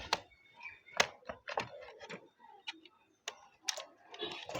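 Scattered sharp clicks and light taps, about seven at uneven spacing, from the plastic casing and parts of an opened battery table fan being handled.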